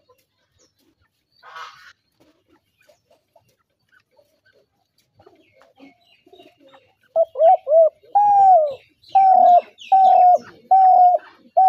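Spotted dove cooing: a quick pair of short coos about halfway through, then a run of evenly spaced longer coos, each about half a second.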